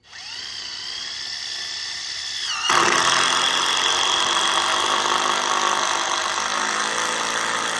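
Cordless drill spinning up with a whine, then boring into timber under load for about five seconds, the pitch dropping as it bites, before stopping suddenly.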